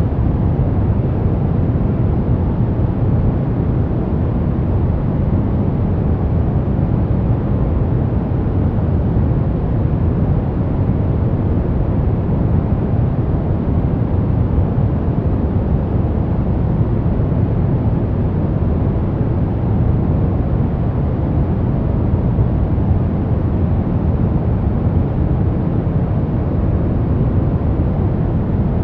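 Continuous, unchanging noise played for sleep and relaxation, billed as white noise. It sounds deep and rumbling, with most of its weight low down, more like brown noise than hissy white noise.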